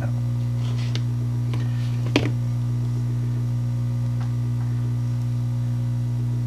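A steady low electrical hum with a few light clicks and taps from work on the radio's wiring, the sharpest a little over two seconds in.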